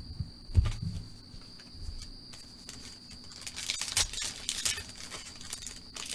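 Football trading cards being handled and flipped through: soft low bumps in the first second, then a run of sharp little clicks and rustles of card stock in the second half. A faint steady high tone hums underneath.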